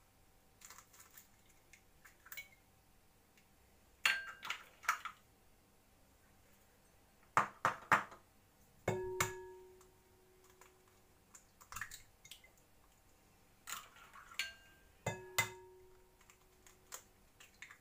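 Eggs being cracked on the rim of a glass mixing bowl: several groups of sharp taps and shell cracks. Twice a tap leaves the glass bowl ringing briefly with a clear tone.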